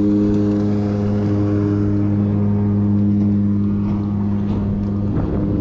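A boat's motor running with a steady low hum of unchanging pitch while the boat is turned.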